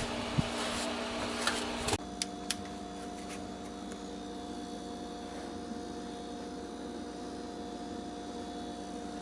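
A broad rushing noise cuts off abruptly about two seconds in. A couple of light clicks follow, then a steady electrical hum made of several fixed tones.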